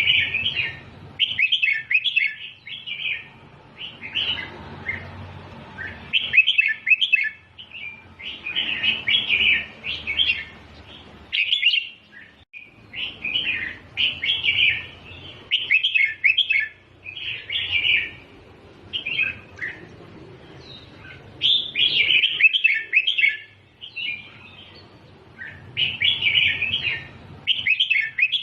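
Red-whiskered bulbul singing: short, quick, chirpy whistled phrases, each about a second or two long, repeated over and over with brief pauses between them.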